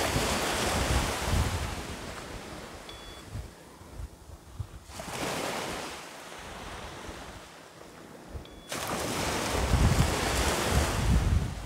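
Wind buffeting the microphone over small waves breaking on a sandy shore, rising and falling in three long surges, the last the loudest.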